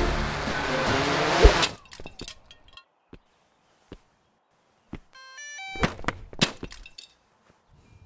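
Music cuts off right after a loud hit. Then come scattered clicks and small clatters, a short run of electronic stepped tones, and several sharp hits with breaking and clinking: sound effects of a quadcopter drone being smashed with a baseball bat.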